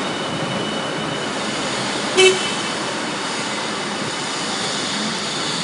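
A single short toot of a forklift horn, over the steady noise of the factory floor.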